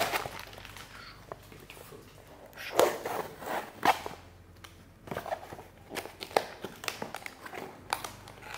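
A small cardboard gift box being handled and opened: scattered light taps, scrapes and paper rustles, in bunches about three and four seconds in and again for the last few seconds.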